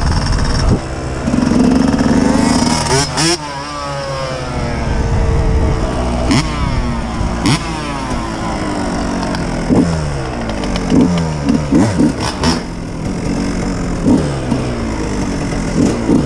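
Dirt bike engine revving, its pitch sweeping up and back down, then a run of short throttle blips over the last several seconds.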